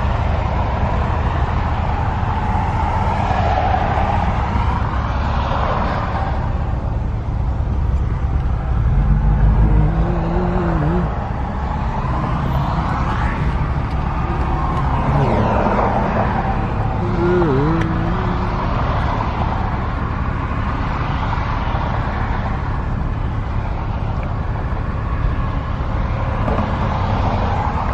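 Steady low road and engine rumble heard inside a car's cabin while it creeps along in slow highway traffic, swelling a few times as traffic moves around it.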